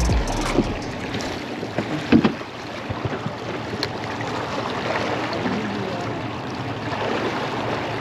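Water lapping against a small boat's hull, with wind on the microphone. A few short knocks sound near the start and about two seconds in.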